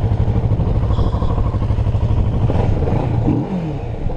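2017 Kawasaki Z650's parallel-twin engine running through its stock exhaust as the bike rolls slowly: a steady low note, easing briefly near the end.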